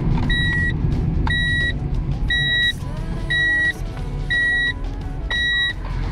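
Inside a moving car: steady low engine and road rumble, with a high electronic warning beep repeating about once a second, each beep under half a second long.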